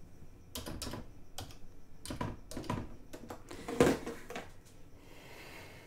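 Hands handling plastic-wrapped craft supplies: a string of irregular light clicks and crinkles, the loudest a little before four seconds in.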